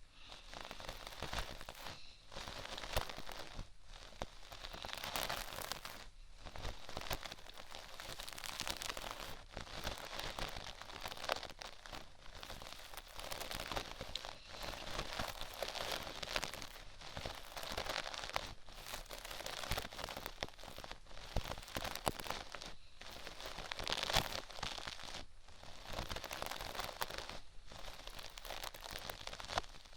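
Close, crinkly scratching and rubbing of an ear-cleaning tool on a binaural microphone's ear, in repeated strokes with short breaks about every one and a half to two seconds.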